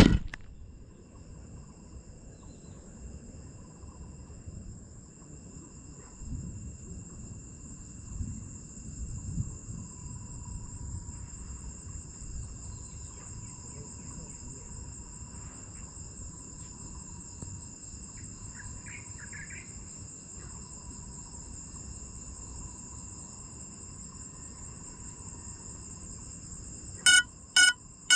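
Insects trilling steadily in grass, a dense high-pitched chorus over a faint low rumble. Near the end, loud electronic beeps start, about three a second.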